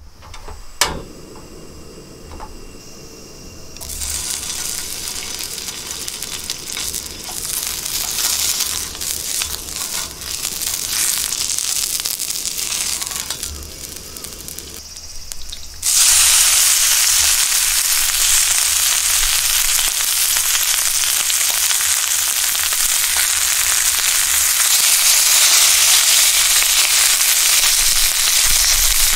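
Beef fat sizzling and crackling as it melts in a hot frying pan. About halfway through, a sudden, much louder steady sizzle sets in as thin slices of wagyu beef are laid into the fat. A sharp click sounds just under a second in.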